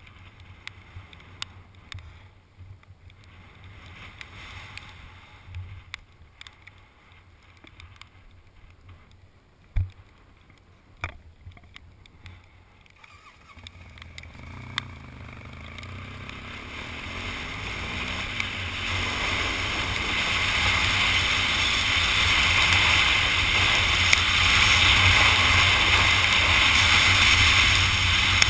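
Wind rushing over the microphone of a camera on a moving motorcycle, with a low rumble beneath. It is fairly quiet at first, with two sharp knocks about ten seconds in, then swells from about halfway to a loud steady rush.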